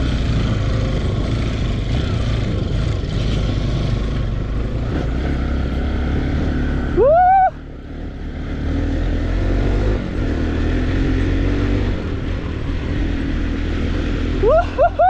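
Dirt bike engine running over a rough trail, with a sharp rising rev about seven seconds in and a few quick revs near the end.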